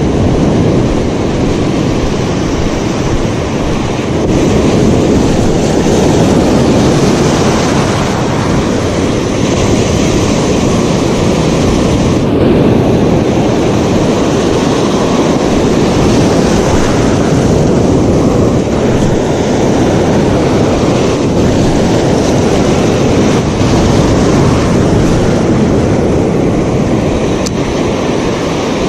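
Ocean surf breaking and washing over the shallows in a steady, loud wash, with wind rumbling on the microphone.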